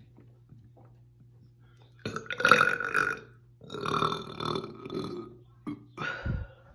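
Deep burps brought up after gulping carbonated Diet Coke: a long, loud burp about two seconds in, a second long one right after, then a shorter one near the end.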